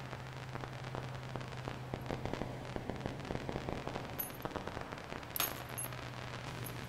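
Rapid small clicks and ticks of fishing tackle (line, swivels and hooks) being handled by hand, with one sharper click about five seconds in, over a steady low hum.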